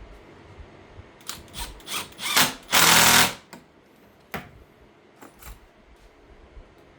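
A power drill run in a few short trigger pulls, then one longer burst of about half a second, likely driving a screw, followed by a few light clicks and knocks.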